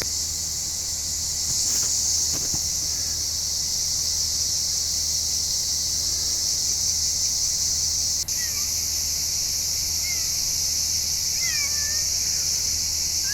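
Steady, high-pitched drone of summer insects. It breaks off for a moment about eight seconds in, then carries on, with short chirping calls over it near the end.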